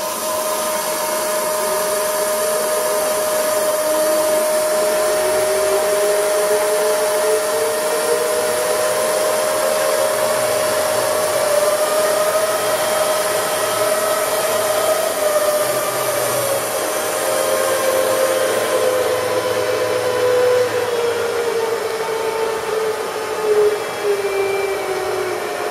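Union BFT125/5 horizontal boring machine's table feed drive running as the table traverses in and out on feed: a steady motor whine, with a second whine that rises in pitch over the first dozen seconds and then slowly falls again.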